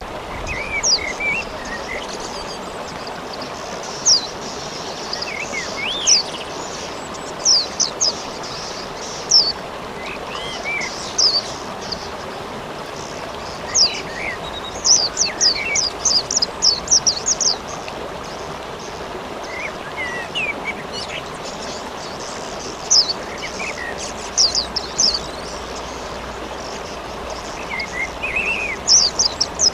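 Steady rain hiss with small birds chirping over it: sharp high chirps come in bursts, some in quick runs, and lower rising-and-falling calls come now and then.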